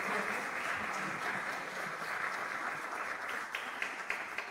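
Audience applauding; the dense applause thins near the end into a few separate claps.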